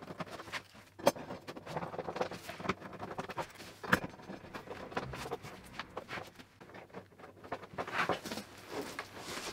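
Fast-forwarded sound of M8 bolts with doubled washers being wound in to fix TV wall-mount arms: quick, irregular light clicks and taps, with a sharper knock about a second in and another about four seconds in.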